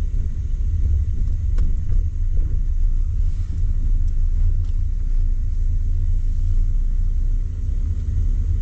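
Steady low vehicle rumble, with a couple of faint clicks.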